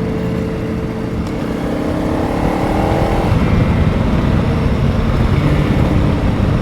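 Honda CRF300 Rally motorcycle's single-cylinder four-stroke engine running under way, its pitch rising as it speeds up about two seconds in, with a rushing noise growing louder.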